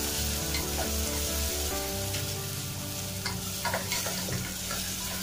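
Browned onions and freshly added grated tomato sizzling in hot oil in a stainless steel pot, stirred with a spoon.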